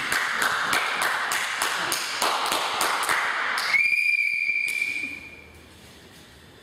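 A quick, even beat of sharp taps, about four a second, over a rushing noise, breaks off and gives way to a single steady high whistle note held for about two seconds.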